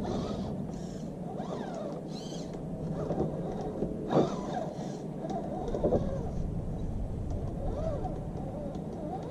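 Redcat Gen8 scale RC crawler's electric motor and gear drive whining, the pitch rising and falling with the throttle, with a couple of sharp knocks about four and six seconds in.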